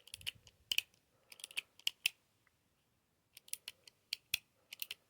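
Sharp metallic clicks of a Heritage .22 LR single-action revolver's action being worked, in small clusters over the first two seconds and again in the second half, as the cylinder refuses to turn with the gun raised.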